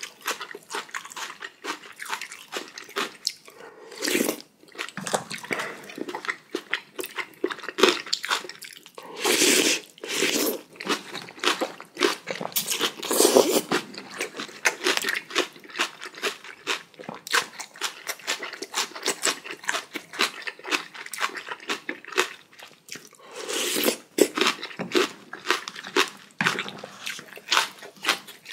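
Close-miked eating sounds: a person chewing and crunching food in a rapid run of small clicks and crackles, broken by several louder bursts of about a second each.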